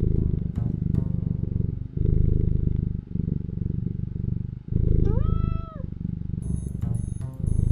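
Domestic cat purring loudly, in rhythmic in-and-out breath cycles. A single meow about five seconds in rises, holds and falls, and a few short chirps come near the start and near the end.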